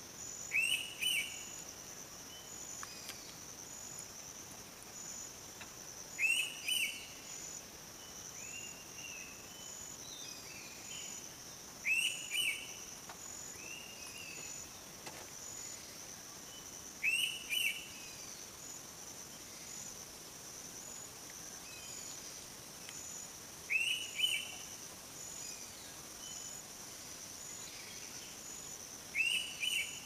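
Indian pitta giving its two-note whistled call, the 'thank you' call, six times at intervals of about six seconds, over a steady trill of insects.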